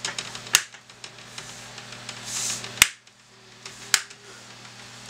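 Plastic latches of an Acer Aspire V Nitro laptop's screen bezel snapping into place as the bezel is pressed onto the display lid: three sharp clicks, the loudest about halfway through, with a brief scraping hiss just before it.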